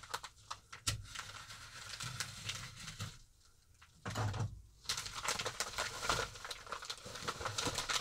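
Yellow bubble-padded paper mailer envelope rustling and crinkling as it is handled and opened, with a short quiet pause about three seconds in.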